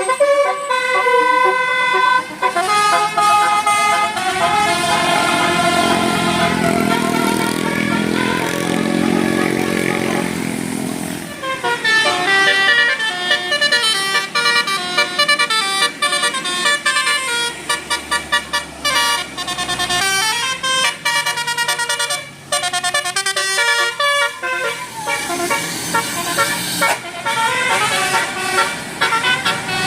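Basuri-type 'telolet' bus horn, a multi-trumpet air horn, playing a rapid tune of stepped notes, several tones at once. A bus engine rumbles underneath during the first third.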